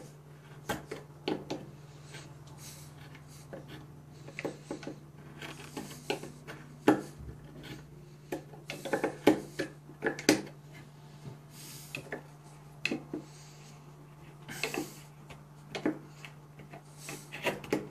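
Mora Companion carbon-steel knife cutting into a pine block, with irregular short scraping strokes and clicks as the blade bites into the wood and shavings break away, some strokes coming in quick clusters.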